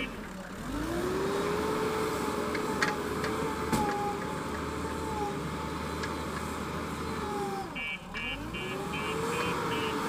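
JCB backhoe loader's diesel engine running under load as it pushes sand. The revs dip and climb again just after the start and again about eight seconds in. At that second dip the reversing alarm starts beeping, about three beeps a second.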